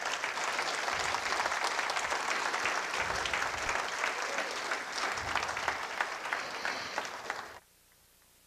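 Audience applauding, a steady mass of clapping that cuts off suddenly about seven and a half seconds in.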